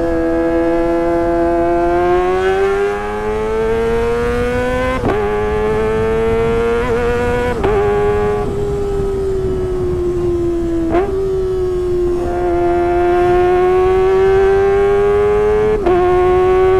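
Kawasaki ZX-25R 250 cc inline-four running at high revs through a Sportisi Motorsport SRX aftermarket exhaust, giving a high-pitched exhaust note. The pitch rises and falls slowly, with a few sudden jumps in pitch.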